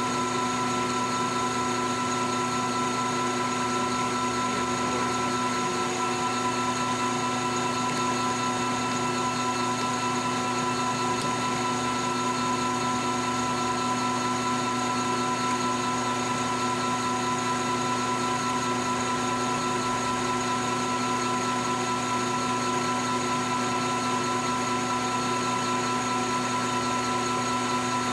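Metal lathe running at constant speed while a carbide insert tool turns a taper point on a thin stainless steel rod: a steady machine whine with several fixed tones that holds even throughout.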